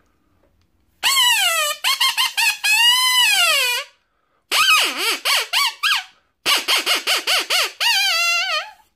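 Rabbit-distress predator call blown in three series of high-pitched, wavering squeals, some drawn out and some in quick choppy pulses, imitating a rabbit in distress to lure coyotes.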